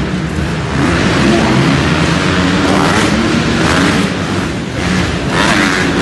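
Motocross bike engines revving and running, loud throughout with the level rising and falling.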